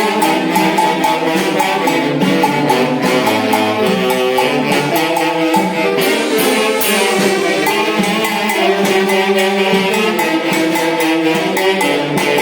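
Tunantada, a Peruvian dance music, played by a band orchestra: several melodic instrument lines over a steady, evenly spaced beat.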